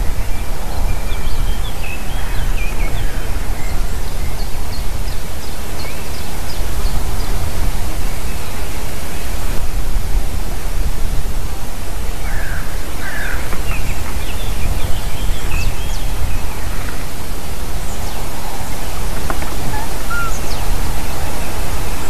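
Wind rumbling and hissing on an outdoor microphone, loud and unsteady. Faint, scattered bird calls and chirps come through it now and then.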